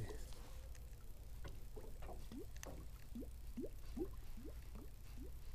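Water gurgling and lapping against the hull of a small boat in a quick run of short gurgles, about two to three a second, with a few faint clicks.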